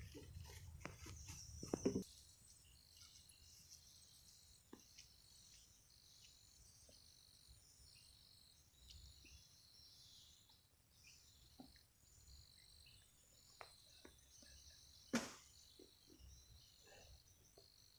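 Faint chorus of insects chirping in a steady, high-pitched pulsing pattern. Handling rustle comes in the first two seconds, and a single sharp knock about fifteen seconds in.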